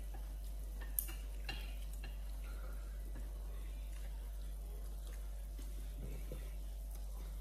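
Quiet tableware noise: a steady low hum, with a sharp light click about a second in and a softer one just after, as chopsticks and utensils touch plates and dishes.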